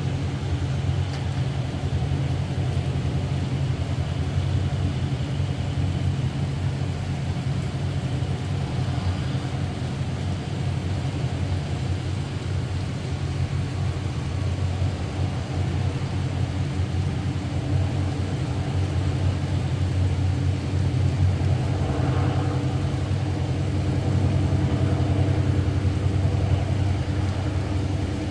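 Steady low rumble of GEK diesel-electric locomotives hauling a passenger train, with an even hiss of heavy rain over it. The engine note grows a little stronger and fuller in the last third.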